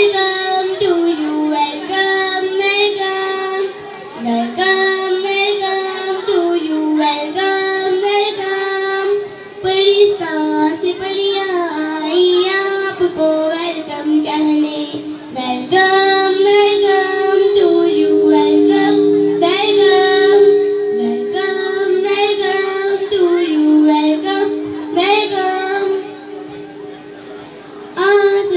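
A group of young girls singing a welcome song in unison through a microphone, with held notes and gliding melody lines. The singing drops away briefly near the end, then resumes.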